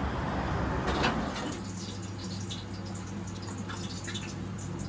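Broad noise that swells about a second in, then a knife slicing tomatoes on a wooden chopping board: scattered small, crisp, wet clicks over a low steady hum.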